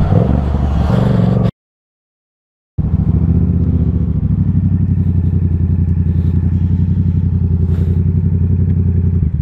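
Yamaha 689 cc parallel-twin motorcycle engine running at low, steady revs with an even pulsing beat as the bike is ridden slowly, with a brief total dropout of the sound about one and a half seconds in.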